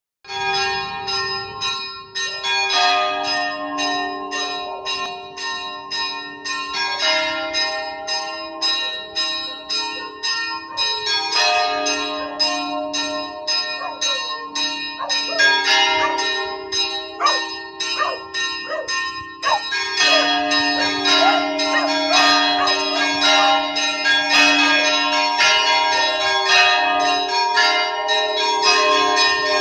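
Church bells ringing in a fast, continuous peal, about three strokes a second with each tone ringing on under the next. From about two-thirds of the way through, the ringing becomes fuller and denser, with more bells sounding together.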